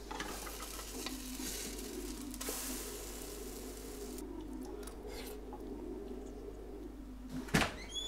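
Food sizzling in a frying pan on a gas stove, with a spatula clicking and scraping in the pan. The sizzle drops away about four seconds in, leaving a few light clicks, and a single sharp knock comes near the end.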